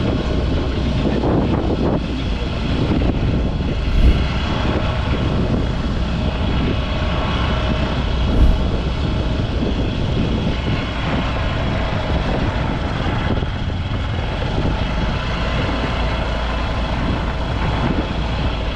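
Steady motor-vehicle running noise with a heavy low rumble, and two short thumps about four and eight and a half seconds in.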